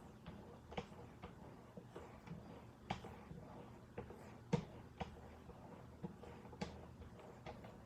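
1-micron leather strops on a Wicked Edge guided sharpener being stroked up along a fixed-blade knife's edge: irregular light clicks and taps as the strops meet the blade, the sharpest one about halfway through, over a faint low hum.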